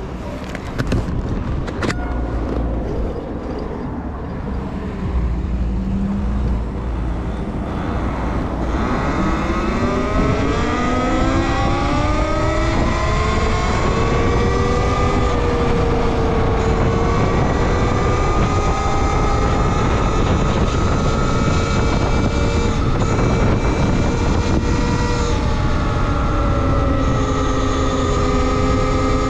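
Talaria Sting R MX4 electric dirt bike's motor whining as it accelerates. After a low rumbling noise with a few clicks, the whine rises steeply in pitch about eight seconds in, then holds a steady high pitch with small rises and dips as the speed changes.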